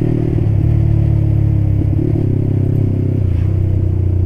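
Yamaha Scorpio's single-cylinder four-stroke engine running steadily under way through a cheap aftermarket Creempie exhaust, with a deep, mellow exhaust note. The note shifts slightly about three seconds in.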